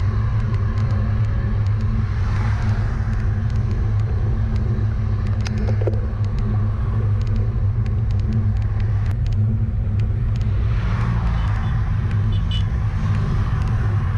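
Steady low rumble of wind and road vibration on a GoPro camera riding along on a road bicycle, with motor vehicles swelling past on the road about two seconds in and again about eleven seconds in, and scattered light clicks.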